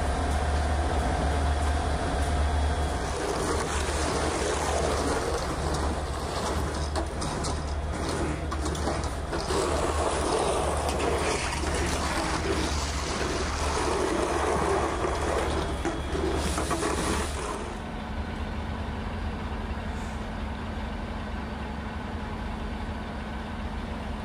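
Heavy truck engines running with a low rumble under a steady wash of noise. About three-quarters of the way through, the noise drops away and a steady engine hum carries on.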